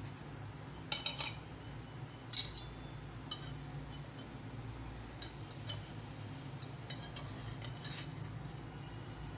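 A metal table knife clinking and scraping against a china plate while a baked cake is cut and a slice is worked loose: about a dozen short, sharp clinks scattered through, the loudest about two and a half seconds in. A low steady hum runs underneath.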